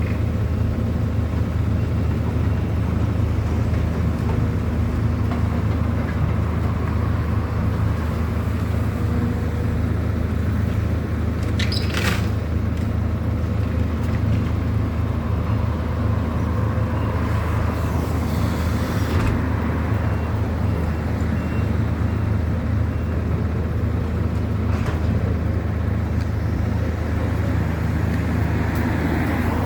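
Steady low rumble of vehicle engines and street traffic. A brief hiss about twelve seconds in.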